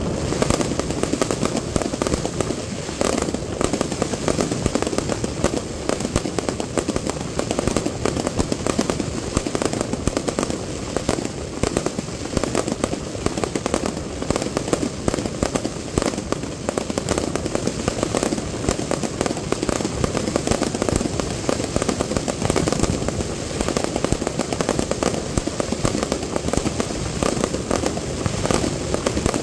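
Fireworks display going off in a dense, unbroken barrage of bangs and crackle from bursting aerial shells and ground pieces.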